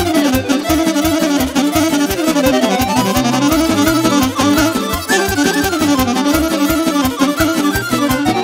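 Live Romanian wedding band playing an instrumental passage of folk dance music (muzică de joc): a quick, winding melody over a steady beat.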